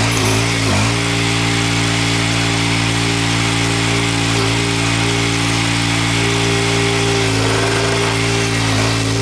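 Victory GSF-1500 stump grinder's 420 cc, 15 hp petrol engine running at steady high speed. It dips briefly in speed twice in the first second, then holds steady apart from slight dips later on.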